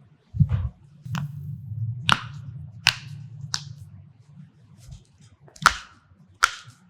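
A series of sharp cracks and snaps from joints being manipulated during a chiropractic adjustment, about seven spread over six seconds, with a low hum under the first few seconds.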